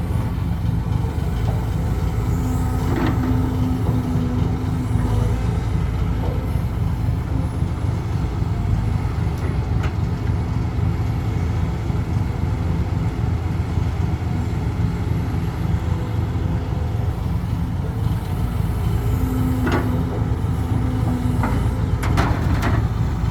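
Heavy diesel engines of an excavator and a dump truck running steadily under load while soil is loaded. A steady droning tone rises over the rumble twice, early and again near the end, typical of the excavator's hydraulics working hard.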